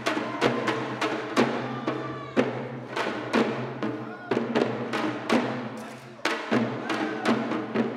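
Korean pungmul percussion playing a steady beat of sharp drum and gong strikes, the loudest about once a second with lighter strokes between.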